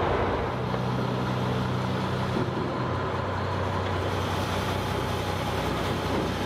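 Passenger ferry's engines running with a steady low drone under a rush of wind and water. The engine note drops about halfway through.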